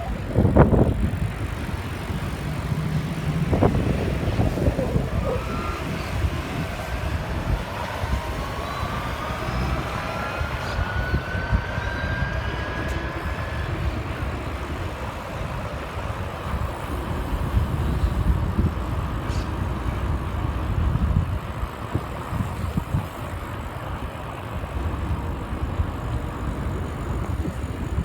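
City street traffic heard from a mountain bike on the move, with a steady low rumble throughout and a few knocks in the first few seconds. About eight seconds in, a passing vehicle's rising whine sweeps upward for several seconds.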